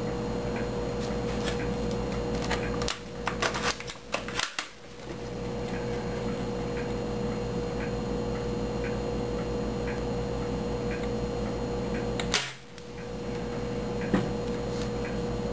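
A steady electrical hum with a fixed tone runs throughout. A spring-powered Mauser SR airsoft sniper rifle is worked and fired twice: a quick run of mechanical clicks ends in a sharp snap about four seconds in, and a single sharp snap comes near the end.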